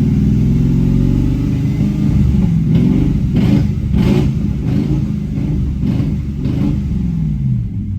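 BMW E39's V8, run without its exhaust, revved several times in neutral, the pitch rising and falling with each blip and settling back toward idle near the end. The engine has a random misfire that moves from cylinder to cylinder.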